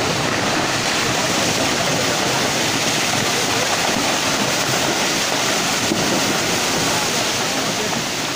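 Steady rushing noise of a landslide in heavy rain: mud, water and uprooted vegetation pouring down a saturated hillside into a flooded stream.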